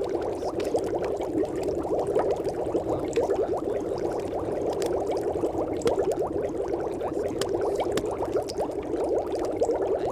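Steady, dense bubbling like water at a rolling boil, with no pause or change.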